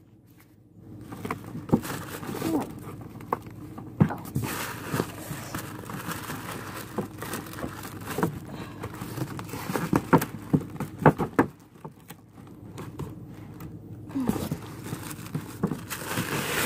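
Handling noise from unpacking a cardboard box: rustling packaging and scattered sharp taps and knocks, with a quieter pause about two-thirds of the way through.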